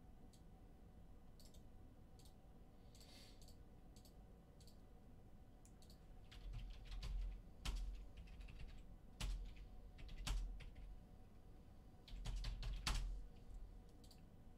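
Computer keyboard typing: scattered keystrokes and clicks, quieter at first and coming more often, with dull knocks on the desk, from about six seconds in.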